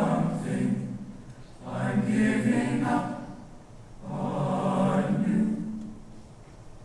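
Mixed high-school choir singing slow, held phrases, three in all, with short breaths between them.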